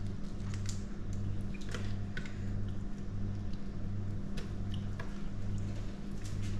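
Cooked yabby shells cracking and snapping as they are peeled by hand, in scattered small clicks, over a steady low hum.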